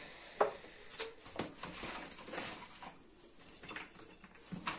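Gloved hands picking sliced chili peppers out of a plastic bowl and dropping them into a small glass jar: a few light clicks and taps with soft rustling between.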